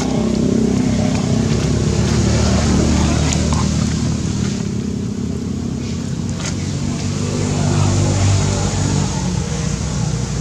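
A motor vehicle engine running, a steady low hum that gets louder about eight seconds in and then eases off.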